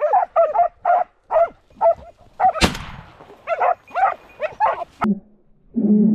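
Hunting hound barking rapidly at a cornered wild boar, about two to three barks a second, with one sharp bang about two and a half seconds in. A deeper call follows near the end.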